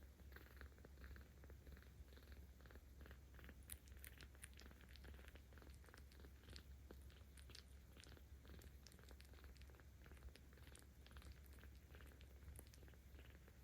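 A newborn kitten, about two and a half weeks old, purring steadily: a faint, low rumble with small scattered clicks over it.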